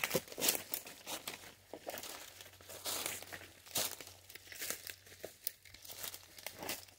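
Dry leaves and branches rustling and crackling in quick, irregular bursts as someone pushes on foot through dense forest undergrowth and leaf litter.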